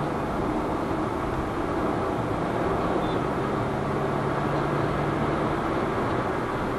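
Steady road and tyre noise with a low engine hum, heard inside the cabin of a Hyundai Venue N Line driving at highway speed.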